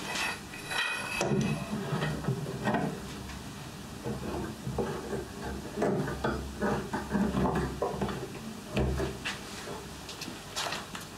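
Irregular clacks and knocks of clamps being slid along their metal bars and tightened against wooden boards, with wood knocking on wood.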